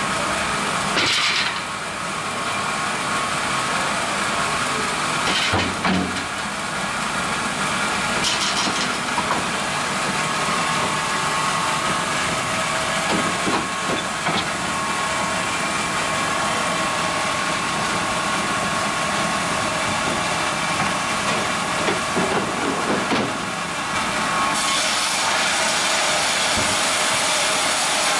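Mebor HTZ 1300 Plus horizontal band sawmill running steadily with a hiss and a faint whine, with a few knocks from the log deck and conveyors. About 24 seconds in the hiss grows louder and brighter as the band blade cuts into a log.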